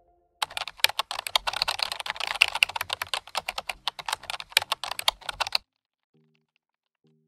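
Computer keyboard typing sound effect: a fast run of key clicks lasting about five seconds, cutting off suddenly.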